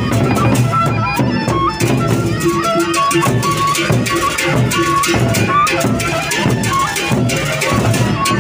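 Gendang beleq ensemble playing: large double-headed barrel drums beaten in fast, dense strokes with other percussion, and a short-note melody line over them.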